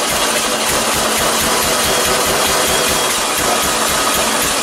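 Air-cooled Volkswagen flat-four engine running loudly and steadily on a test stand through bare header pipes with no muffler, its firing pulses plain. It is the engine's first run, its carburetor not yet fully assembled.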